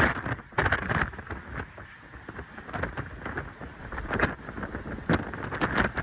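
Hurricane-force wind gusting with heavy rain, swelling and easing in loudness, with several sharp gusts buffeting the microphone.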